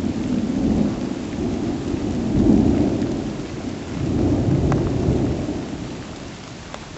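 Thunder from a supercell rumbling in rolls, swelling twice and fading near the end, over steady rain.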